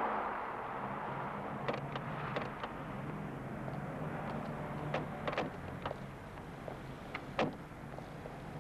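Car engine running low and steady as the car pulls up and stands, with car doors clicking open and knocking shut: several short clicks from about two seconds in and a sharper knock near the end.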